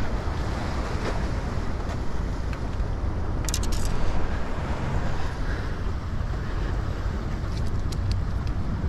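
Steady wind rushing on the microphone over surf on the jetty rocks, with a strong low rumble. A few short clicks come about a third of the way in and again near the end.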